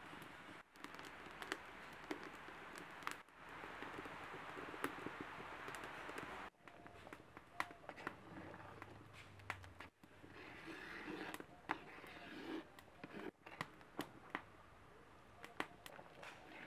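Metal spoon stirring a thick coconut-milk curry in an earthenware pot, scraping and giving frequent sharp clicks against the clay, over a steady low hiss. The sound breaks off briefly a few times.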